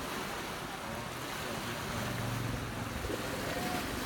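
Fast-flowing river water rushing steadily, with wind noise on the microphone.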